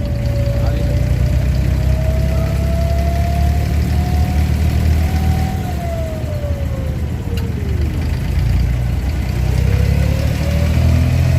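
An engine running with a steady low drone. Its pitch rises slowly, drops about six to eight seconds in, then climbs again near the end.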